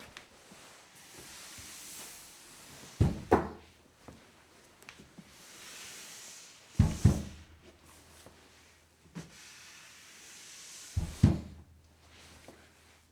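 Slide sound effect, played three times about four seconds apart: each is a hissing slide of a couple of seconds ending in a sharp double knock, like something sliding shut.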